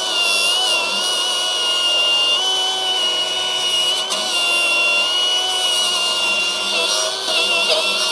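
Milwaukee 2886 M18 FUEL cordless flathead angle grinder running under load, its disc grinding a steel weld and spatter. It makes a steady high whine over a grinding hiss, and the pitch wavers slightly as the wheel is pressed into the metal.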